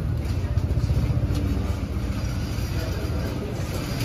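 Steady low rumble of a vehicle engine.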